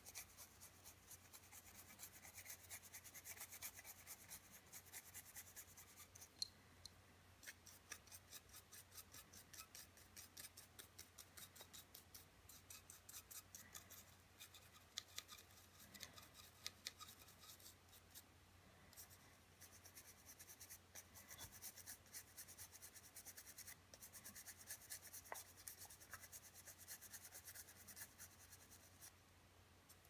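Faint, fast back-and-forth scrubbing of a cleaning brush on pistol parts, in long runs of quick scratchy strokes with a short break a little past halfway. One sharper click about six seconds in.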